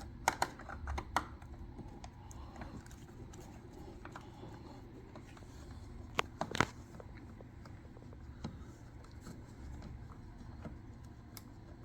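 Faint hand-work on the machine: a screwdriver and small parts being handled, with a few scattered sharp clicks and taps as the Phillips screws are taken out. The loudest is a pair of clicks about six seconds in.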